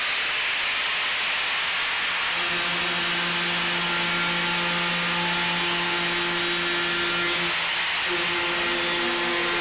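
Angle grinder with a grit-24 sanding disc grinding through the fibreglass skin and foam core of a composite blade panel: a steady hissing grind, with the motor's hum settling in about two seconds in and breaking off briefly near the end. This is the stage of removing the first fibreglass layer and the foam, down to the inner fibreglass layer.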